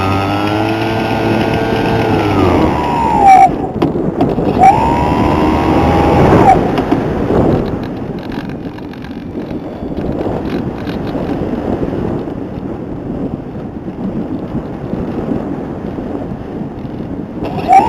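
Whine of an RC aircraft's motor heard from its onboard camera. It falls in pitch and cuts out about two and a half seconds in, spools up again briefly, then stays off for about ten seconds, leaving only a rough rush of air over the camera, and comes back with a rising whine at the very end. Two or three sharp knocks sound in the first few seconds.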